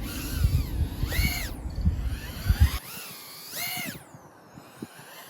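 High-pitched whine of a 1S tiny whoop quadcopter's brushless motors, rising and falling twice as the throttle is punched and let off, with low thumps and rumble over the first few seconds.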